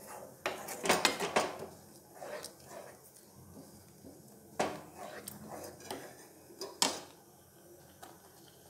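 A spatula stirring and scraping a thick grated-beetroot mixture in a non-stick frying pan, knocking against the pan several times: around the first second, again near five seconds and near seven seconds, with quieter scraping between.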